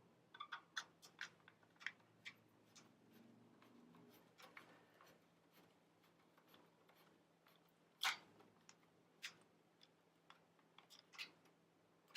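Faint scattered clicks and taps of a screwdriver and hard plastic as the battery screws go back into a Dyson V6 main body, with one sharper click about eight seconds in.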